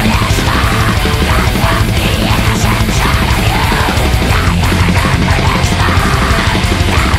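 Black metal song played by a full band: heavily distorted guitars and dense drumming, loud and unbroken.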